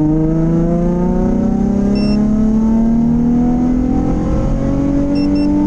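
Nissan 350Z's 3.5-litre V6 with an HKS exhaust at full throttle in third gear, its note rising steadily as the revs climb through an 80–120 km/h acceleration run.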